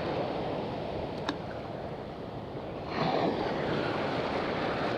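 Small waves washing on the shore with wind on the microphone, swelling a little about three seconds in. A single faint click about a second in.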